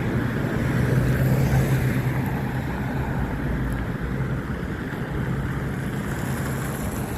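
Heavy wind blowing and buffeting the microphone, a steady rushing noise over a constant low hum.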